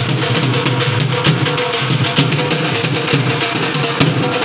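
Music with a steady drumbeat.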